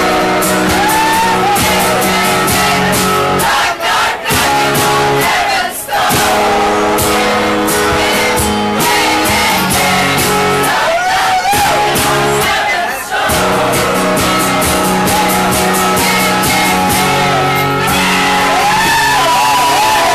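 A man singing while strumming an acoustic guitar, live and amplified, with a few momentary breaks in the strumming.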